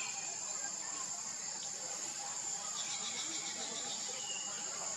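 Insects droning in a steady high-pitched chorus, with scattered short chirping calls over it and a quick run of pulses about three seconds in.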